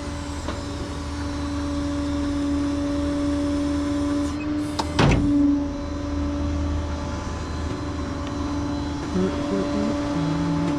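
A tow truck's hydraulics whine at a steady pitch over the running engine while it loads a pickup. There is a single loud knock about five seconds in.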